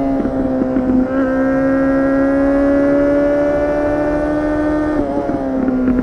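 2004 Honda CBR600RR's inline-four engine running through a LeoVince slip-on muffler with no catalytic converter. It holds a steady, slowly rising note under way, then the note drops about five seconds in, with a few short crackles.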